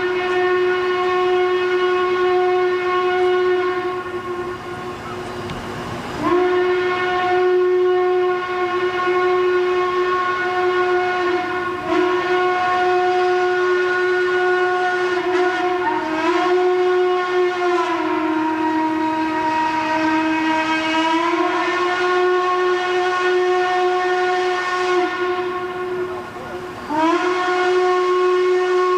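Train whistle blowing one long, sustained pitched tone. It sounds again sharply about six seconds in and again near the end, and sags slightly in pitch for a few seconds in the middle.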